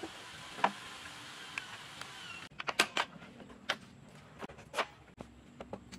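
Wooden parts of a plywood saw table knocked and clicked together as they are handled: one sharp click about half a second in, then a string of sharp wooden taps from about halfway, over a steady hiss.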